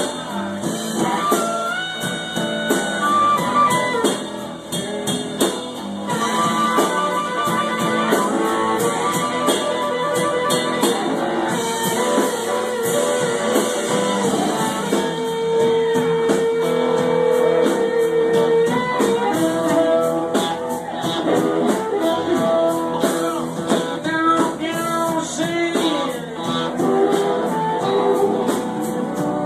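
Blues band music with guitar prominent: long held, bending notes over a steady band backing.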